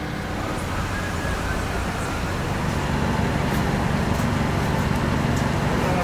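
Mobile crane's diesel engine running steadily while it holds and lowers a heavy load, growing a little louder about halfway through, with a few faint light clicks over it.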